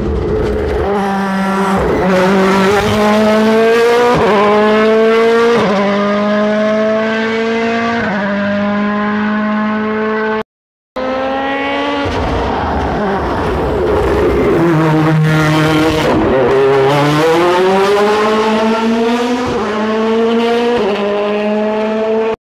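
Rally car engine at full throttle, revving up and dropping back in pitch at each quick upshift through the gears. After a brief cut, a second car's revs fall as it slows, then climb again through several upshifts as it passes.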